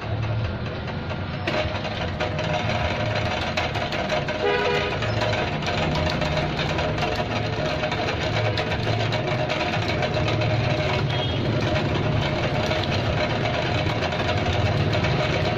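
Motor of an electric vegetable slicing machine running steadily, with a dense rattle of fine clicks as carrots are fed through and sliced. The sound grows fuller about a second and a half in.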